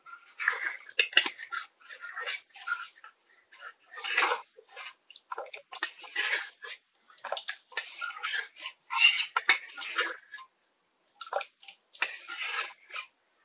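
Water poured from a bowl into an aluminium pressure cooker of dal curry, splashing and gurgling in irregular bursts.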